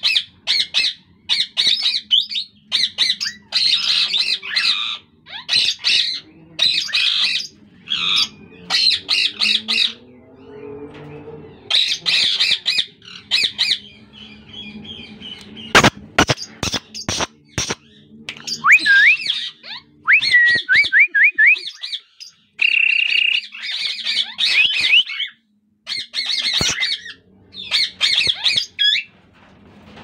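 Plum-headed parakeets calling in an aviary: shrill squawking calls repeated over and over, a few each second with short gaps. About sixteen seconds in there is a quick run of sharp clicks, and near twenty seconds a few rising whistled notes.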